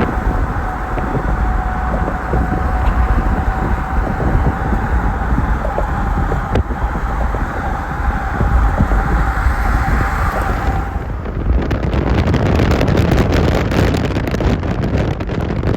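Road noise of a car travelling at highway speed, with a steady hum over it. About eleven seconds in it cuts to rough rushing wind buffeting the microphone.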